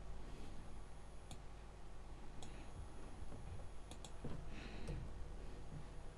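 A few sharp, isolated clicks of a computer mouse and keyboard keys while code is being edited, a second or more apart with a quick double click about four seconds in, over a faint low hum.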